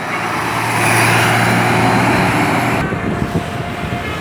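A bus passes close by just after sounding its telolet horn: a loud rush of engine and tyre noise with a steady low engine note. The rush drops away about three seconds in, leaving quieter road noise.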